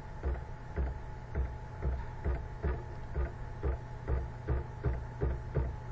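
Computer keyboard keys tapped over and over in a steady rhythm, about two presses a second, each a soft click with a dull thump: Control-Z being pressed again and again to undo steps. A constant low electrical hum runs underneath.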